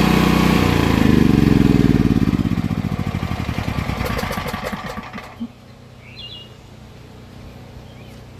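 Portable generator's small engine running, then shut off: its firing slows and its pitch falls over about four seconds until it stops, about five seconds in.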